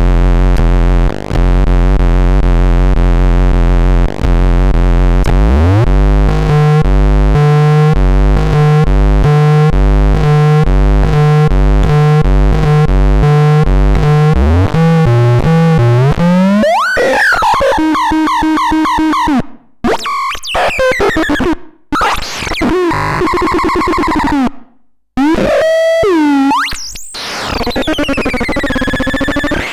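Dead Bug electronic synthesizer making harsh noise: a loud buzzing drone, a rising sweep about five seconds in that turns into a fast pulsing pattern, then from about sixteen seconds on chaotic warbling pitch sweeps that cut out abruptly several times, with falling glides near the end.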